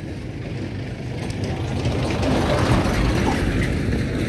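Machinery running: a dense rattle of clicks over a low rumble, growing louder through the middle.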